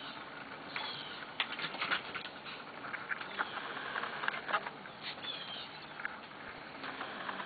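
Corgi puppies' paws and claws pattering and scrabbling as they play, a run of quick light clicks and scrapes, with a few short high squeaks.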